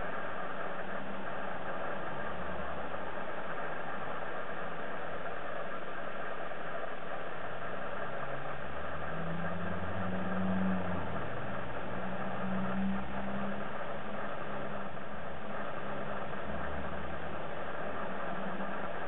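Low engine rumble of road traffic on the street outside, swelling and fading a few times over a steady hiss, loudest twice near the middle.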